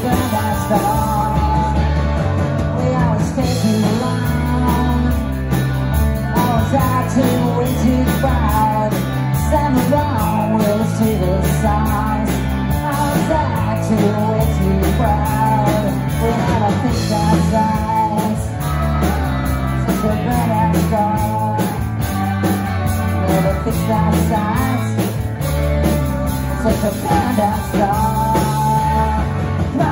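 Live rock band playing through a PA: electric guitars with a wavering lead line over a steady drum beat, an instrumental stretch without lyrics.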